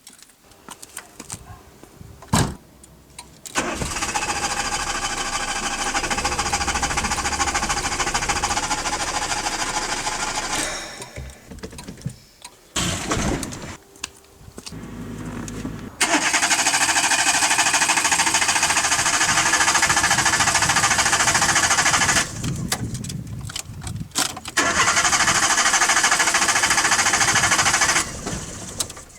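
Renault Twingo's starter cranking the engine over without it catching: three long bouts of cranking, with a few short bursts between them.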